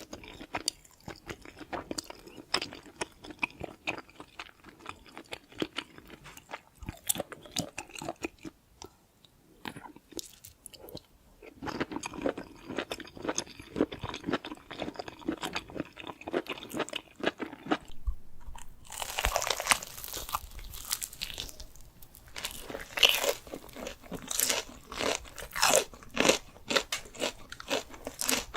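Close-up eating sounds: someone biting into and chewing crunchy food, a fast run of crackling crunches. The crunching eases off briefly before the middle and comes back louder and crisper over the second half.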